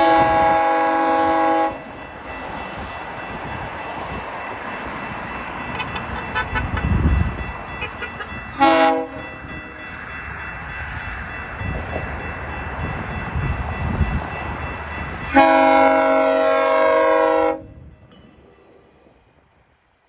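GO Transit commuter train sounding its multi-note horn for a grade crossing as it approaches: a long blast, a short one, then another long one, with the train's rumble in between.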